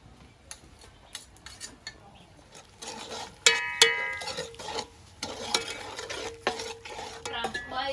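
Metal ladle stirring and scraping in a large aluminium pot of simmering liquid. From about three seconds in it knocks against the pot several times, and the sharpest strikes ring.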